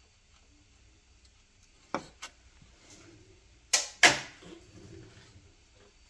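Plastic wiring connector on the A/C compressor's thermal switch being worked off by hand: two light clicks about two seconds in, then two loud sharp snaps a second and a half later, followed by faint rustling.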